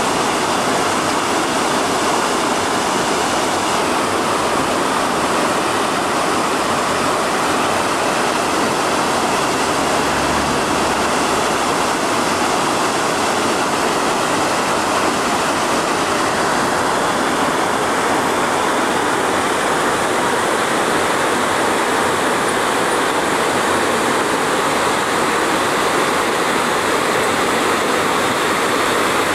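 Steady rushing of water flowing down a narrow concrete-lined canal.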